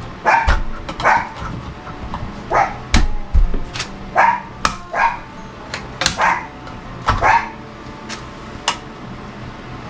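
A dog barking repeatedly, about a dozen short barks at irregular intervals.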